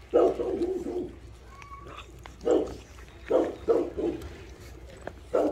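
Rottweiler puppies vocalizing in about six short bursts while feeding on raw meat. The first burst is the longest, nearly a second, and the rest are brief.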